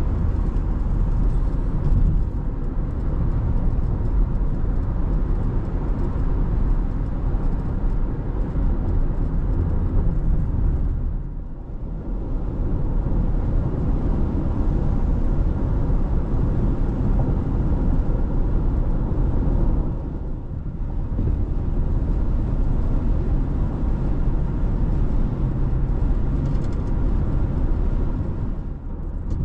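A road vehicle driving along, with steady engine and road noise. The noise eases off briefly about 11 and 20 seconds in.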